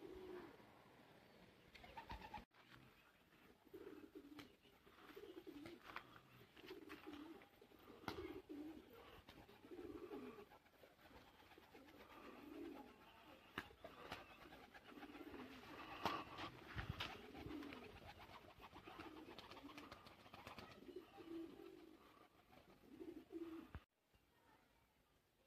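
Domestic pigeons cooing faintly, a string of short low coos roughly once a second, with a few faint clicks among them. The sound cuts off shortly before the end.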